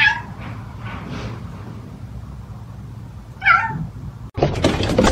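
Domestic cat meowing: a short meow at the start and a louder, longer meow about three and a half seconds in.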